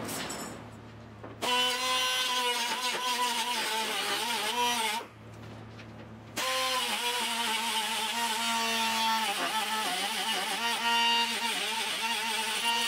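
Small grinder with a cutting wheel, run in two spells: a motor whine that wavers and sags in pitch as the wheel bites into the steel, with a grinding hiss over it. It is grinding down a weld on the windshield frame, starting about a second and a half in, stopping near five seconds and starting again a second and a half later.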